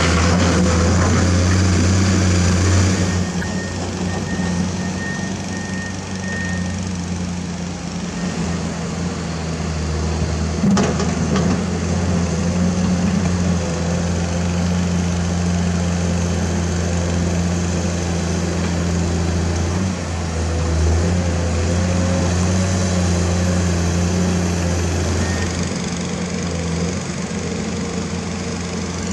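Komatsu PC210 excavator's six-cylinder diesel engine running steadily while it digs, its note and level dropping about three seconds in. A single sharp knock comes a little before halfway.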